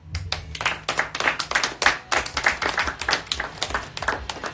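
A handful of people clapping: separate, irregular claps rather than a dense wash of applause, over a low steady hum.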